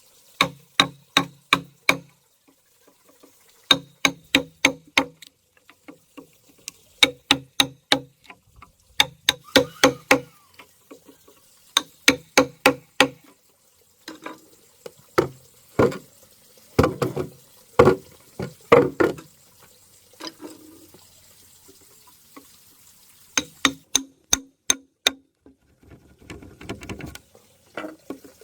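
Hammering on wood: quick bursts of four to six ringing blows with short pauses between them, and a brief rough scraping noise near the end.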